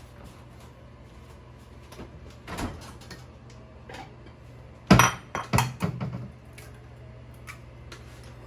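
Kitchen handling noises: a clatter, then a sharp knock about five seconds in followed by a few quicker knocks, as things such as pans, jars or utensils are set down or moved. A low steady hum runs underneath.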